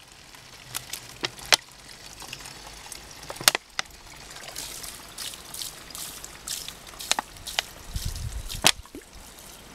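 Water pouring and trickling out of a plastic bottle, which is being emptied and rinsed. Several sharp clicks and knocks break through it, the loudest about a second in, about three and a half seconds in, and near the end.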